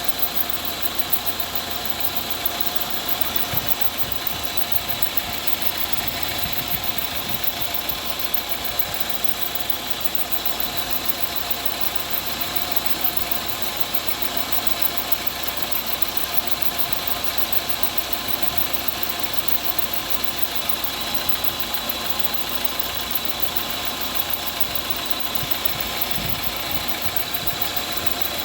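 Car engine idling steadily with a continuous hiss over it, which the owner puts down to a drive-belt problem.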